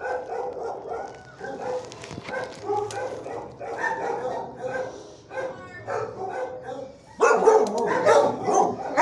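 Shelter dogs barking in their kennels, a steady string of short barks that grows louder about seven seconds in.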